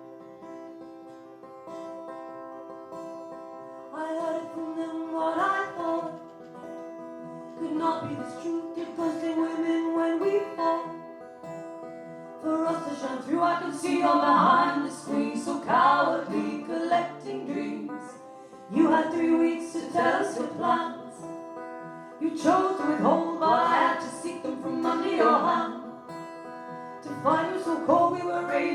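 Live song opening on guitar, with ringing held chords, then singing coming in over the guitar about four seconds in. The performance gets louder and fuller about twelve seconds in.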